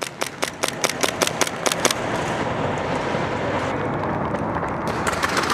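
Airsoft gun firing a quick string of about ten sharp shots, about five a second, then a steady rushing noise with a few faint clicks near the end.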